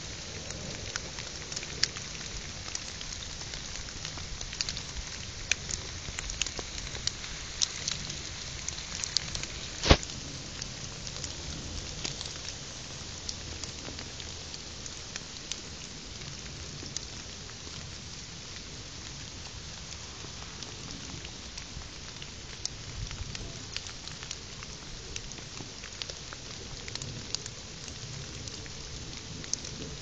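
Rain falling on wet leaf litter: a steady hiss with scattered sharp ticks of single drops, and one loud click about ten seconds in.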